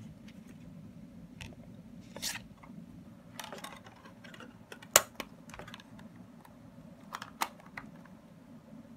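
Small plastic clicks and taps from handling a transparent ClearTech portable CD player as a disc is loaded and its clear lid is closed. The sharpest click, about five seconds in, is the lid snapping shut, and a few lighter clicks follow a couple of seconds later.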